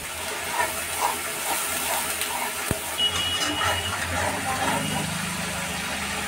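Masala gravy sizzling in a kadhai on a gas stove: a steady hiss with a low hum under it. A single light tap, likely the spatula against the pan, comes about two and a half seconds in.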